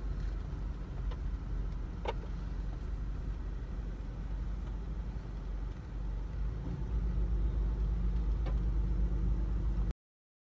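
Low rumble of road traffic outside, growing louder about six and a half seconds in, with a few short clicks.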